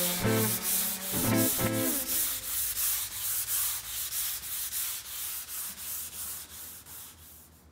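Sanding on black walnut boards: rhythmic back-and-forth strokes, about three a second, fading out near the end. A music cue ends about two seconds in.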